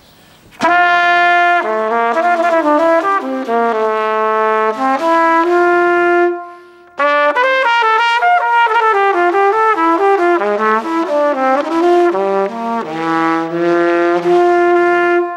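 Solo trumpet playing a melody in two phrases, with a short break about six seconds in.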